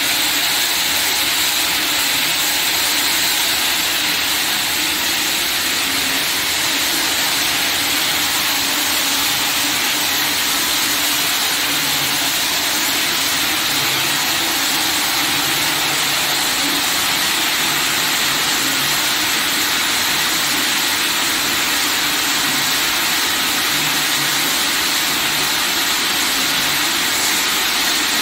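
BOPP self-adhesive tape slitting machine running at a steady speed: a constant, loud whirring hiss.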